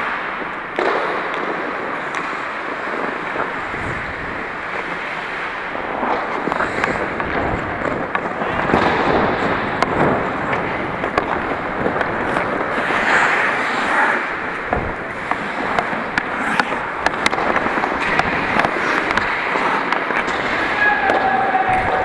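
Ice hockey play: skate blades scraping and gliding on the ice, with frequent sharp clacks of sticks and puck, picked up close by a camera worn by a player.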